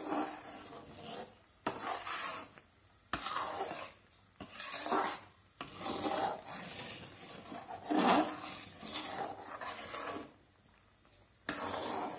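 Metal spatula scraping and stirring thick, sticky jaggery syrup around a metal kadai, in a series of rasping strokes with short pauses between them.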